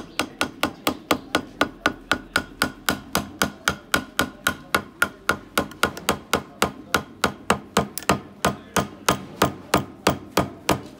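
Pliers striking the steel shaft of an electric churner (madhani) over and over, about four sharp metallic taps a second in an even rhythm, each with a brief ring.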